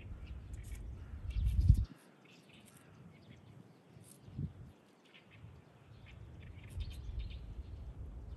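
Birds chirping in short scattered calls, over wind rumbling on the microphone that gusts loudest just under two seconds in, then drops away.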